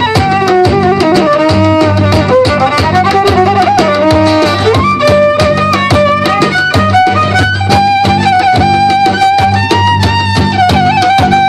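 Live gypsy fusion band playing an instrumental in an unusual Turkish rhythm: a violin carries the melody with held and sliding notes over steady bass notes and a quick, even drum beat.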